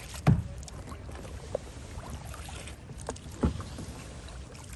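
Kayak paddle strokes on calm water: a double-bladed paddle dips and pulls. There are two louder strokes about three seconds apart and a fainter one between them, over a low, steady background.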